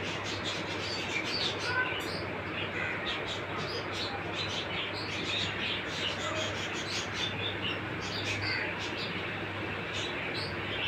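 Small birds chirping repeatedly in short high notes over a steady low hum and background noise.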